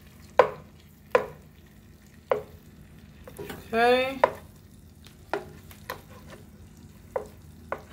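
Plastic spoon stirring cream cheese and butter melting in a nonstick pot, knocking sharply against the pot about eight times at irregular intervals, over a faint sizzle of the melted butter.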